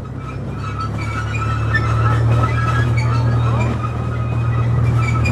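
Small tourist train's engine running under way, a steady low drone that grows louder over the first two seconds and then holds, with thin high tones above it.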